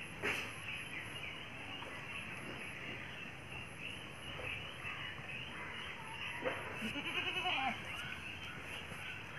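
A Beetal goat bleats once about seven seconds in, a wavering bleat lasting about a second. Earlier there is a sharp knock near the start and another just before the bleat.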